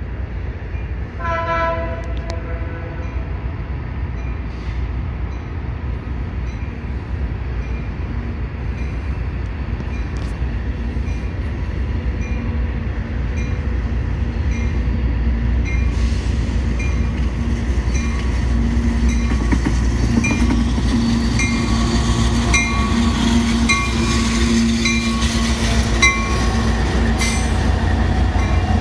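Union Pacific diesel freight locomotives approaching and passing close by. A short horn blast sounds about a second in, the locomotive bell rings steadily at about one and a half strikes a second, and the engine rumble grows louder as the locomotives draw alongside.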